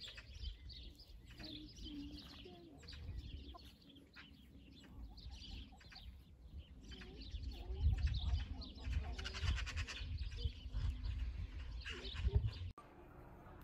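Birds chirping around a flock of white hens, with a few short low clucks from the hens. Wind rumbles on the microphone, louder in the second half, and the sound cuts off abruptly near the end.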